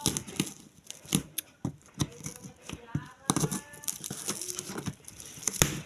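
Irregular clicks, knocks and crinkling from handling the desk fan's parts and packaging during unboxing.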